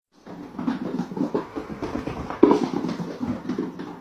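A dog panting in quick, irregular breaths, with one louder breath a little past halfway.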